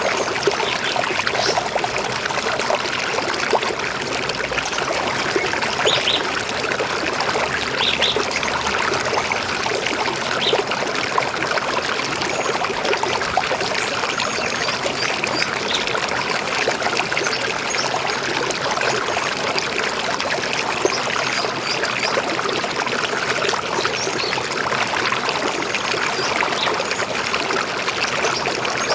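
River water flowing and babbling steadily, with a few brief high bird chirps over it.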